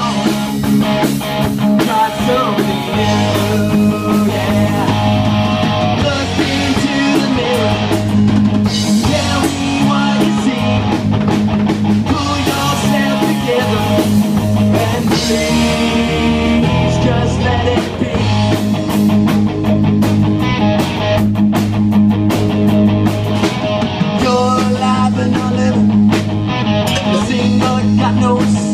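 Live amplified rock band playing an original song: electric guitars over a drum kit, with a steady, driving low end.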